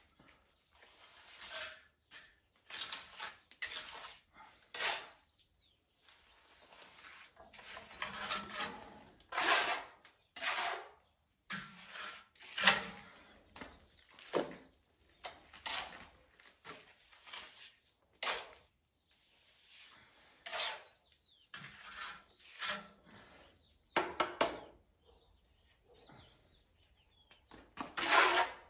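Steel trowel scraping mortar out of a wheelbarrow and smearing it onto a brick wall, in repeated irregular scraping strokes of uneven length.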